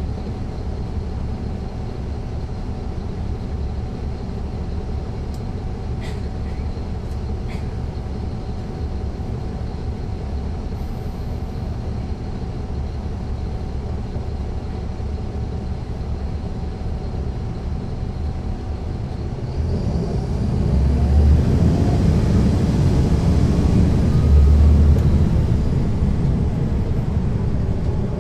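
Caterpillar C13 ACERT diesel engine of a 2009 NABI 40-SFW transit bus, heard from the back seat inside the bus, running steadily at low revs with a faint whine. About twenty seconds in it revs up and grows louder as the bus accelerates, then eases off slightly near the end.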